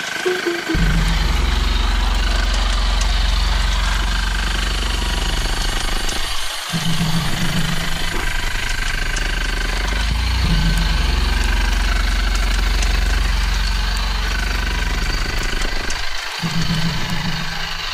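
Jackhammer drilling into rock in a narrow mine tunnel. It starts just under a second in and runs steadily, cutting out briefly twice: about a third of the way through and again near the end.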